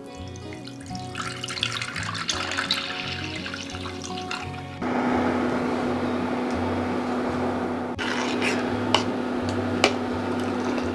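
Milk being poured into a saucepan over background music with a steady bass line. About halfway through, the sound jumps to a louder steady hiss with a low hum, with a few sharp clicks near the end.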